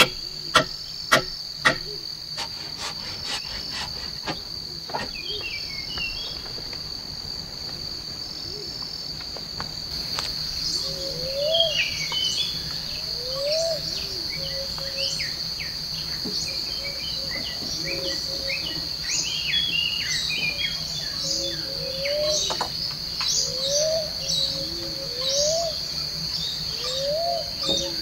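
Forest ambience: insects keep up a steady, high-pitched drone while birds call, with many short chirps and a repeated rising call from about a third of the way in. A few sharp knocks sound in the first two seconds.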